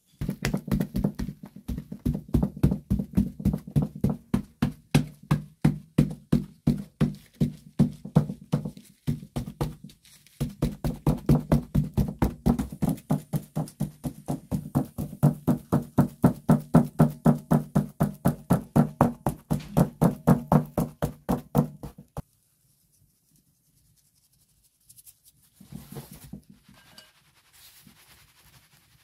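Pastry brush dabbed rapidly onto egg-washed flat bread dough on a wooden peel, making quick soft thumps about four to five a second. The thumps break briefly near the middle and stop about three-quarters of the way in.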